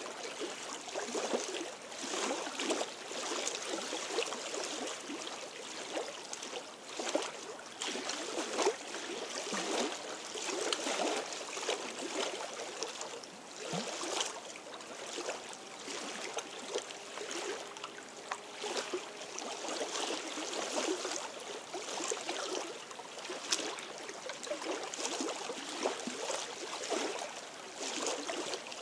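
Small lake waves lapping and splashing against the stones at the shoreline, an irregular run of little splashes.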